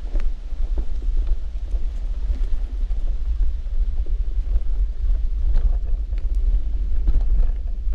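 Wind buffeting the camera microphone as a deep, steady rumble, with faint irregular footsteps on a dirt forest trail.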